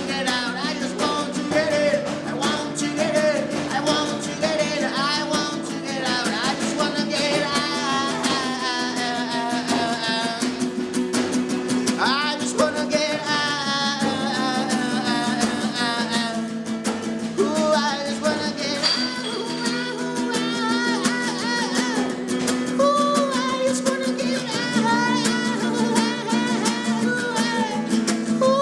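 Band music with guitar: sustained low notes that shift every few seconds, under a lead line that bends and wavers in pitch, with no sung words.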